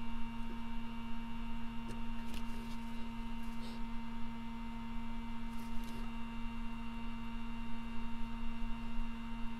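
A steady electrical hum with a few faint clicks and taps.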